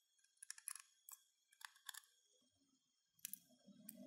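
Faint, scattered clicks and taps of a precision screwdriver and tweezers on the small metal screws and connector shield inside an opened smartphone.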